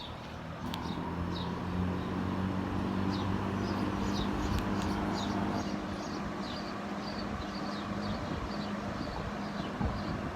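Vintage Dominion 20-inch box fan switched up to high speed: its motor hum and the rush of air grow louder over the first two seconds, then it runs steadily. There is a sharp click about a second in, and birds chirp repeatedly over the fan.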